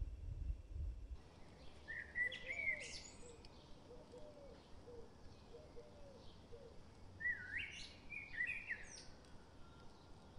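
Wild bird song: two short phrases of quick chirps, one about two seconds in and another about seven seconds in, with fainter, lower calls between them. A low rumble fades out in the first second.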